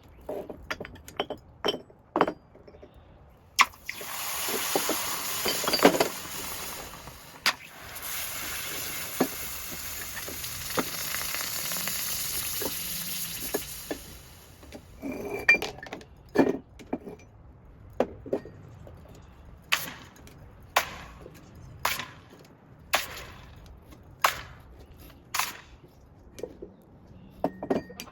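Pieces of scrap metal clinking and tapping against each other again and again, with a steady hiss from about four seconds in until about fourteen seconds in.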